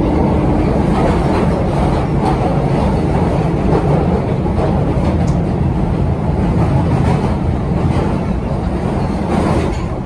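London Underground 1972 Stock train running, heard from on board: a loud, steady rumble with occasional faint clicks of the wheels on the track.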